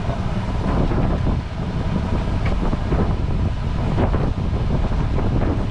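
Wind buffeting the microphone in a steady low rumble, as on a boat out at sea.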